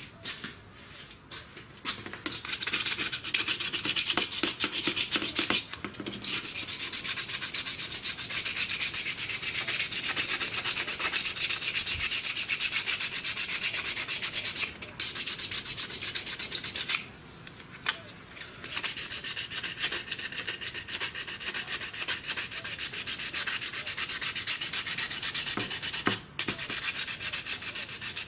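Hand sanding of a small dark frame piece with a round abrasive disc: rapid back-and-forth scratching strokes, with a few short pauses.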